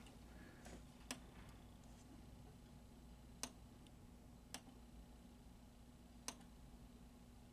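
Near silence broken by about five faint, sharp clicks at irregular intervals, as the switches of a 1980 Williams Firepower pinball machine are closed by hand during switch testing. A faint steady hum runs underneath.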